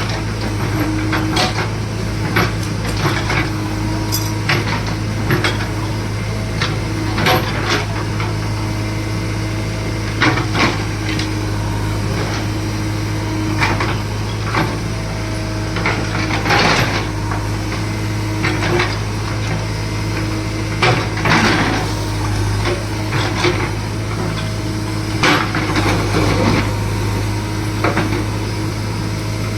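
JCB excavator's diesel engine running steadily under load, with repeated knocks and clanks of metal hitting ground and stone every second or two as it digs a pipeline trench.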